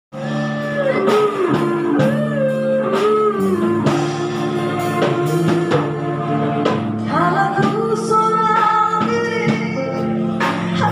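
Live band performing through amplifiers: a woman singing into a microphone over electric bass, electric guitar and drums.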